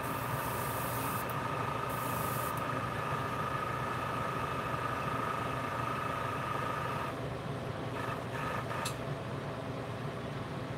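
Airbrush spraying paint in two short hissing bursts near the start, over the steady hum of a running motor with a whine that drops out about seven seconds in; a sharp click comes near the end.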